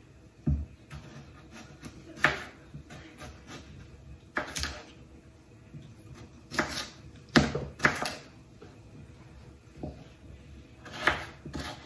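Kitchen knife dicing unpeeled potatoes on a wooden cutting board: irregular knocks of the blade on the board, one every second or so, some in quick pairs.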